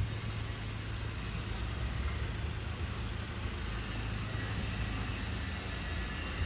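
Steady low engine rumble from vehicles or machinery running, an even background drone with no distinct events.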